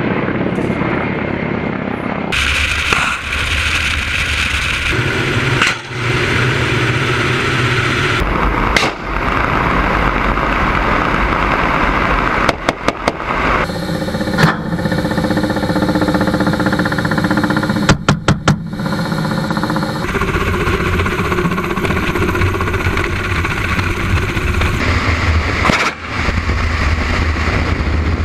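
Kamov Ka-52 attack helicopter in flight: the steady noise of its coaxial rotors and turbine engines, changing abruptly several times, with a steady whine during the stretch heard from inside the cockpit. Twice, about 12 seconds in and again about 18 seconds in, its cannon fires a short burst of four rapid shots.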